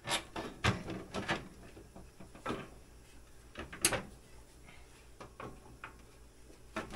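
Scattered clunks and metal clinks as a single-cylinder snowmobile engine is worked down into the sled's chassis by hand. There are several knocks in the first second and a half, and the sharpest clink comes about four seconds in.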